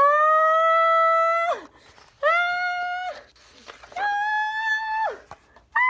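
A girl's voice wailing in long, high held cries, four of them, each a little higher in pitch than the last, a dramatic mock crying.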